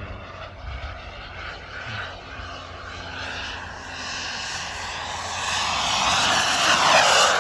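Behotec 220 turbine of a 1/7.75-scale RC F-4 Phantom model jet, a rushing jet whine growing steadily louder as the jet makes a low pass, loudest near the end, its pitch dropping as it goes by.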